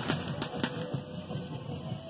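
Fireworks going off: a sharp bang at the start and two more about half a second in, with music playing underneath.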